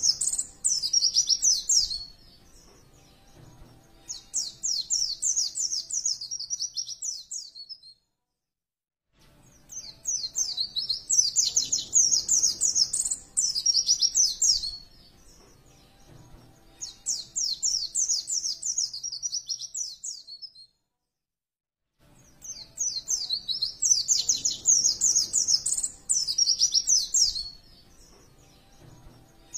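White-eye (pleci) song: phrases of rapid, high twittering chirps a few seconds long, repeated with short pauses between. Twice the sound cuts to complete silence for about a second, as in a looped recording.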